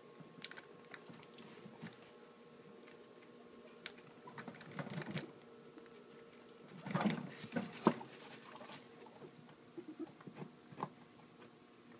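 Guinea pigs chewing carrot: a run of small, irregular crunching clicks, busiest about seven to eight seconds in.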